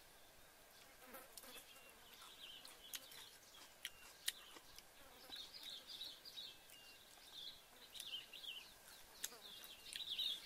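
Faint high-pitched chirping and twittering of small forest creatures, growing busier near the end, with a few sharp light clicks.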